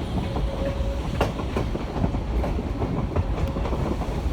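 Railroad passenger car rolling along the track: a steady low rumble with irregular sharp clicks and knocks from the wheels over the rail joints.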